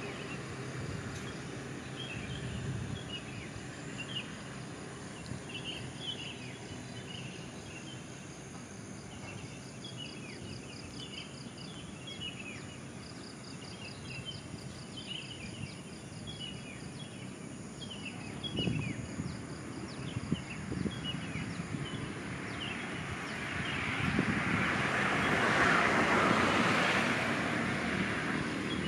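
Birds chirping: many short, quick, down-slurred calls repeating over a low, steady background hum. About twenty-four seconds in, a louder rushing noise swells up and becomes the loudest sound, then eases off near the end.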